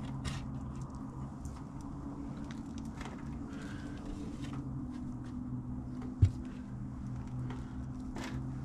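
Loose soil being scooped and scraped out of an in-ground water shut-off valve box: scattered small scrapes and clicks, with one sharp knock about six seconds in. A steady low machine hum runs underneath.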